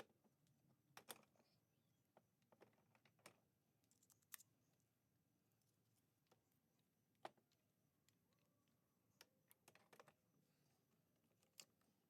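Faint, scattered light clicks and taps, a dozen or so at irregular intervals, from small metal engine parts and hand tools being handled during engine assembly.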